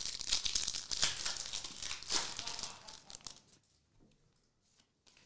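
Foil wrapper of a 2022 Upper Deck Goodwin Champions trading card pack being torn open and crinkled by hand for about three seconds, then only a few faint ticks.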